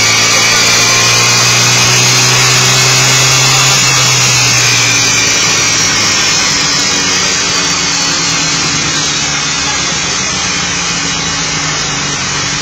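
Yamaha R6 sport bike's inline-four engine running steadily on a roller dynamometer. A high whine slowly falls in pitch over the first several seconds, and the sound eases slightly after that.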